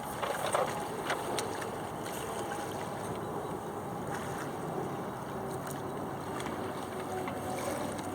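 Steady rush of water and wind from a small sailboat under sail, with a few light clicks in the first second and a half.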